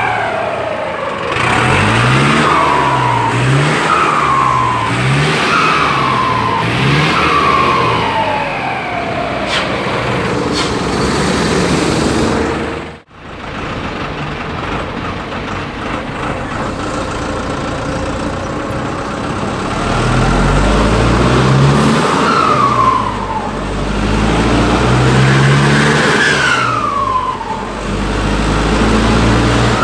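Cummins 4BT turbo-diesel of a JAC 1063 truck, revved in quick blips about once a second. Its Holset HX30W turbo, given 'pente' work on the turbine to make it sing, lets out a siren-like whistle that falls in pitch after each blip. After a break about halfway, the engine pulls under load as heard from inside the cab, and the same falling turbo whistle comes twice as the throttle is lifted.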